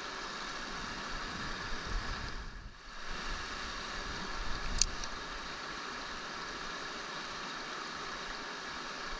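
Mountain stream water rushing steadily, with some low rumble a couple of seconds in and a single short sharp click about five seconds in.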